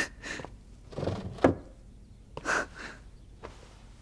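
A few short knocks and clinks of glass containers being handled on a table. There are about four, with the sharpest one about a second and a half in.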